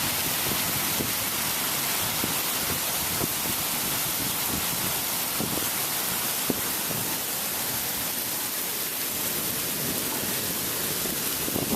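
Thunderstorm rain falling hard: a steady hiss with scattered faint taps.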